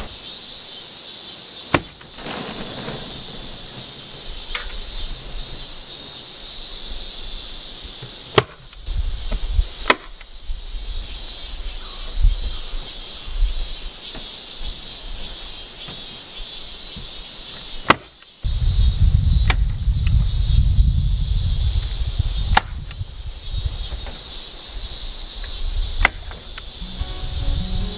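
Sharp single clicks, about seven spread out with pauses between them, as metal lath is fastened onto a wall. A steady high drone of insects runs under them, and a low rumble comes in for a few seconds past the middle.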